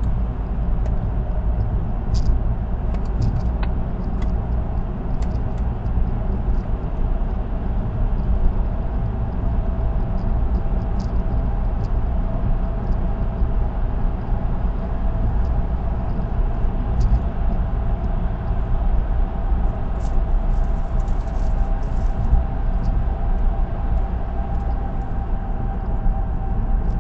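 Car driving at expressway speed, heard from inside the cabin: a steady hum of tyre and road noise over a low rumble, with a few faint ticks now and then.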